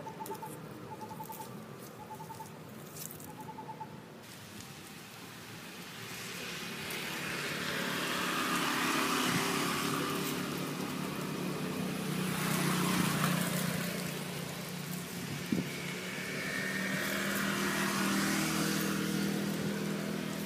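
Motor vehicles passing on a road: engine hum and tyre noise swell and fade three times, after a quieter start with a faint repeated chirp.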